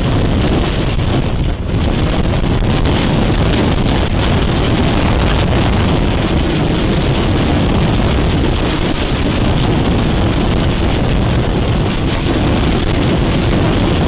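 Strong wind blowing across a rooftop webcam's microphone: a loud, steady rush of noise, heaviest in the low end.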